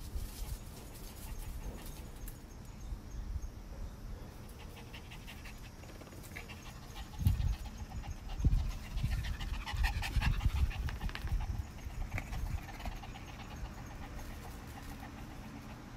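Small dogs panting while they play, with a few dull low thumps about halfway through.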